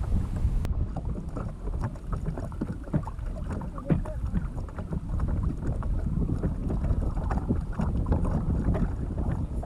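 Wind buffeting the microphone in a steady low rumble, with water slapping and lapping against a kayak hull in many short, irregular splashes and knocks.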